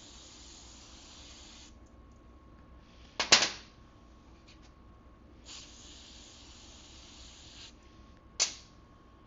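Aerosol brake cleaner spraying in two hissing bursts, one at the start lasting about a second and a half and another of about two seconds midway. Two sharp knocks come between and after them, the louder one about three seconds in and another near the end.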